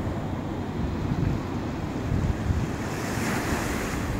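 Wind buffeting the microphone over the steady wash of small waves breaking on a beach.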